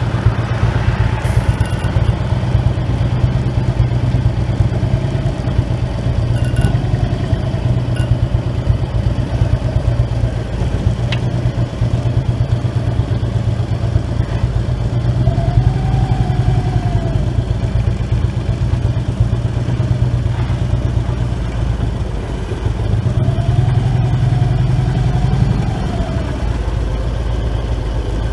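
Harley-Davidson Road King's V-twin engine running at low speed, with the engine note rising and falling briefly twice: once about halfway through and once near the end.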